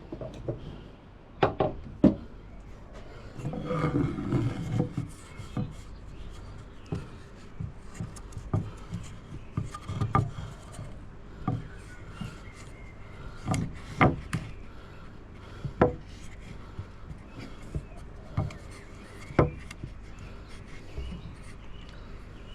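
Wooden slabs being handled and shifted against one another: irregular sharp wooden knocks with scraping and rubbing, busiest about four seconds in. The slabs are Blackwood acacia.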